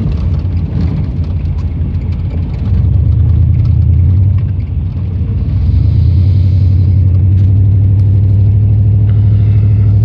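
Vehicle engine and road noise heard from inside the cabin, a low steady drone. It grows louder about three seconds in, dips briefly, then rises again around six seconds and holds as the vehicle accelerates to overtake a slower car.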